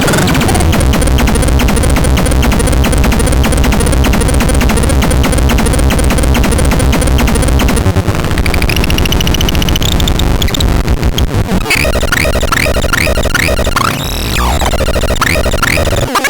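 Electronic synthesized music and sound effects played by an ANERDAN C203M: a fast, steady electronic beat, changing about eight seconds in to rising sweeps and a run of short rising chirps.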